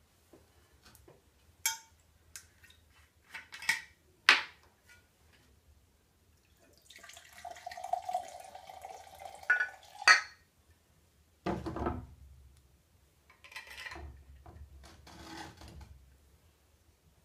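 Whiskey poured from a glass bottle into a metal mug for about three seconds, starting some seven seconds in, with glass clinks and knocks of bottles and the mug being handled before and after. The loudest sounds are a sharp clank about ten seconds in and a heavy knock just after, as the bottle is set down on the bench.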